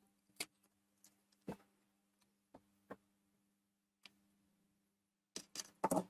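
Scattered sharp metallic clicks of side cutters and a soldering iron working a component lead on a circuit board, ending in a quick cluster of clicks near the end, over a faint steady low hum.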